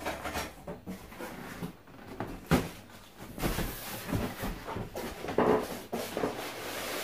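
Cardboard box being handled and lifted: scattered knocks, taps and scraping of cardboard, with the sharpest knock about two and a half seconds in.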